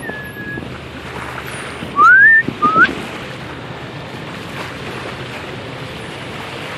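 Two loud, short rising whistles about two seconds in, half a second apart, over steady wind and sea noise on a boat.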